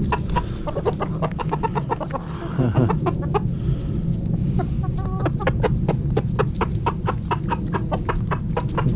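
A flock of chickens, hens and roosters, clucking close around in many quick, short calls as they crowd in for food.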